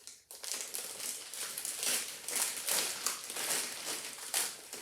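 Plastic packaging bag crinkling and rustling as it is opened and handled, a busy irregular crackle that starts about a third of a second in.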